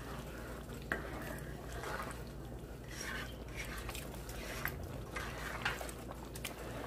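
A plastic spoon stirring thick pepper sauce in an aluminium pot, with scattered light scrapes and knocks against the pot, over a steady low hum.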